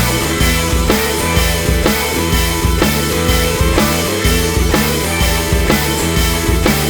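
Background rock music with a steady drum beat and sustained instrumental notes.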